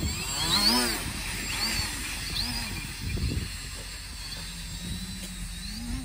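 Electric RC motors spinning the two propellers of a raft sledding across snow, whining up and falling back in pitch as the throttle is worked. A strong rise about half a second in is followed by a few shorter swells, and the sound settles into a steadier, lower drone near the end.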